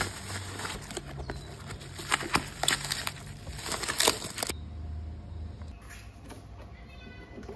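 Black plastic bag crinkling and cardboard and foam packaging being handled as a boxed replacement motorcycle battery is unwrapped, with many sharp crackles. The handling stops about four and a half seconds in.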